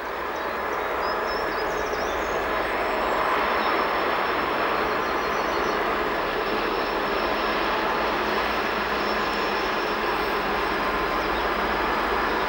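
Two DB class 232 'Ludmilla' diesel locomotives working in multiple, hauling a container train: a loud, steady drone of their V16 diesel engines and cooling fans, growing louder in the first second and then holding level.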